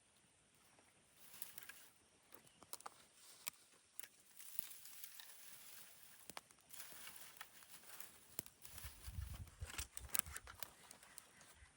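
Faint rustling and crackling with scattered sharp clicks, and a few low thuds about nine to ten seconds in.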